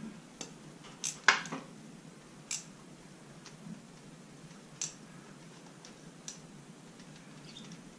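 Scattered light clicks and taps, a handful spread out with gaps between them, from a hand-held marinade injector being worked into a raw turkey. The sharpest click comes just after a second in.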